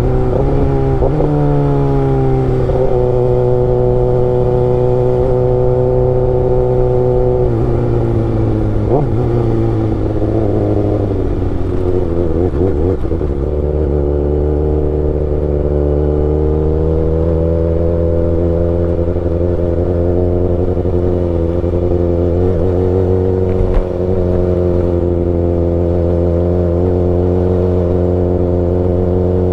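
Kawasaki ZX-6R inline-four engine running on the road. Its pitch drops about a second in and again a few seconds later, wavers unsettled in the middle, then climbs and holds steady at cruising revs.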